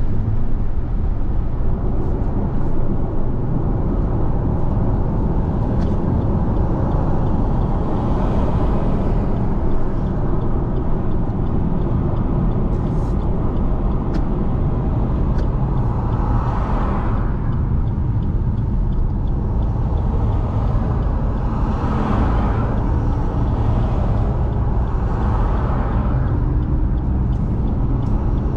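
Car road noise on a wet road: a steady low rumble of engine and tyres, with several swells of tyre hiss and a few light ticks.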